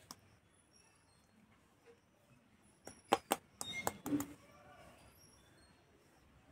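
Several sharp hand taps on an upturned brass bowl standing on a steel plate, a quick group about three seconds in and a few more around four seconds, knocking the moulded pulao loose inside.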